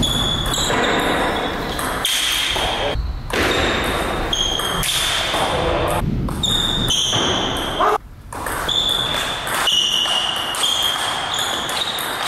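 Table tennis rally: the ball being struck back and forth, bouncing off the bats and the table, against the noise of a large hall with voices in it.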